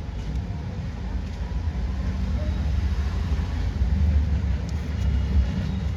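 Steady low rumble of background noise, with a few faint ticks over it.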